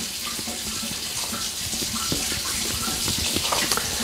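Kitchen tap left running to heat up, a steady hiss of water, with a wooden spoon scraping and knocking against a stainless steel bowl as flour is stirred.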